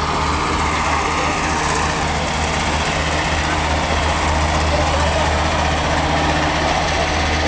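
A train's diesel engine idling steadily, a low, even hum.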